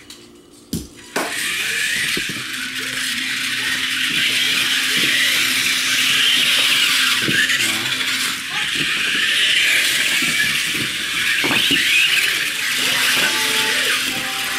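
Losi 1/24 micro RC truggies driving: a steady high whir of small electric motors and drivetrains, wavering up and down as the trucks speed up and slow, with a few brief knocks. It starts about a second in.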